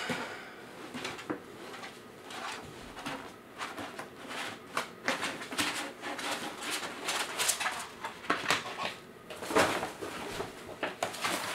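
Light tent's fabric panels and backdrop sheet being handled and tucked in: irregular rustling and crinkling with scattered small taps and clicks.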